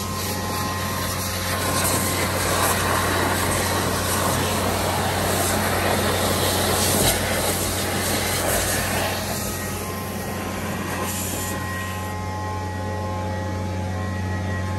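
TRUVAC vacuum excavator running with a steady low hum while its suction tube pulls air, water and loosened soil out of a hole. There is a loud, even rush of air and debris from about two seconds in until about nine seconds, easing off afterwards.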